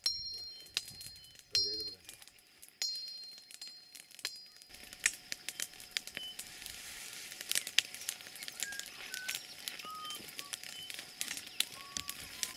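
Crackling and hissing of a smoky brush fire, with many sharp pops, starting about five seconds in. Short bird chirps sound over it, and a brief voice is heard about two seconds in.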